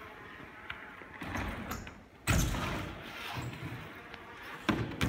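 BMX bike hitting the concrete floor of a skatepark: a loud thud about two seconds in and a second one near the end, with rolling tyre noise between.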